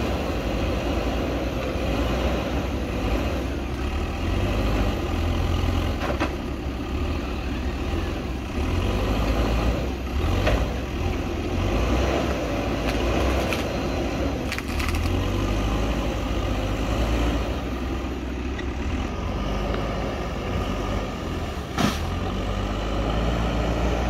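JCB backhoe loader's diesel engine running under load as the machine pushes soil with its front bucket, the engine rising and falling in level, with a few sharp knocks.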